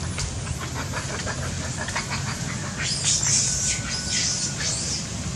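Short, high-pitched squeaky calls, bunched together from about three seconds in for around two seconds, over a steady low rumble.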